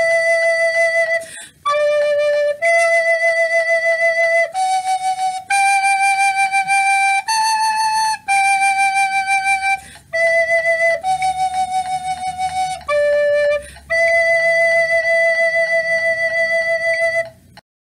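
Plastic soprano recorder playing a slow melody of single held notes on ré, mi, fa#, sol and la (D, E, F#, G, A), with short breaks between phrases. It ends on a long held note that stops about half a second before the end.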